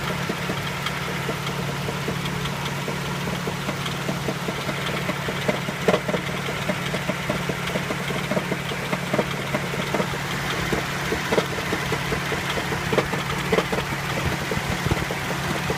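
Nissan Sunny engine idling steadily with a sharp knock at uneven intervals, growing more frequent and louder about five seconds in. The knock is the unidentified fault the owner is asking about.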